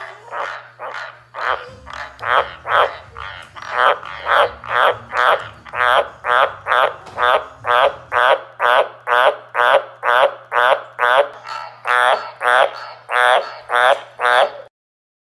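White's tree frogs (Australian green tree frogs) croaking: a rapid, even series of short calls, a little over two a second, that stops suddenly near the end, over a faint low hum.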